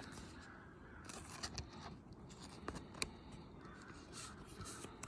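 Faint handling of trading cards: soft rustles and scattered light clicks, with one sharper click about three seconds in.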